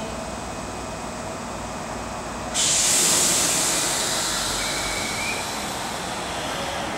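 A Meitetsu 3150-series electric train standing at the platform lets out a sudden loud hiss of compressed air about two and a half seconds in, which fades away over the next few seconds.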